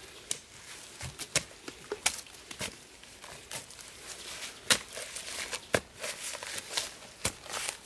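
Hand tool jabbing and scraping into damp soil, loosening earth: irregular sharp strikes with crumbly scraping and crackling of dirt, roots and dry leaves, the hardest strikes in the second half.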